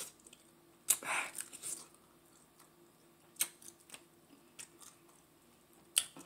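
Close-up eating sounds of chicken wings in spicy sauce: chewing, with a few sharp wet smacks and clicks. The loudest come about a second in, about three and a half seconds in, and near the end.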